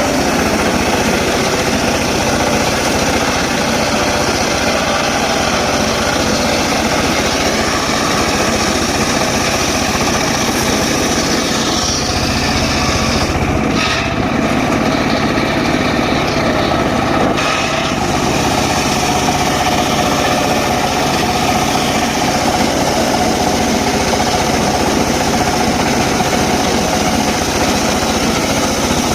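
Engine-driven mobile circular sawmill running steadily while sawing teak wood.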